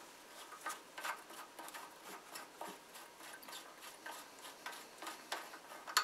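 Plastic nut on the bottom of a toilet fill valve being unscrewed by hand under the tank: faint, irregular clicks and rubbing of plastic threads, with a sharper click at the end.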